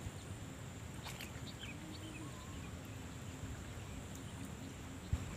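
Faint outdoor ambience: a steady high-pitched hum with a few faint bird chirps. A soft low thump comes near the end.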